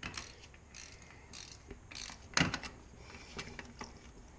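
Hand ratchet wrench clicking in short strokes, a stroke every half second or so, with one sharper, louder click about halfway through, as bolts are run down to mount the brake master cylinder.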